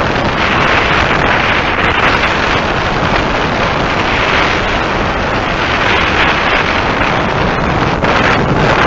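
Steady wind rush over a helmet-mounted dash camera's microphone while riding a motorcycle at road speed.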